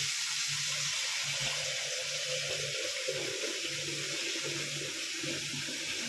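Kitchen tap running steadily, its stream splashing into a metal pot in the sink as the pot is rinsed and scrubbed.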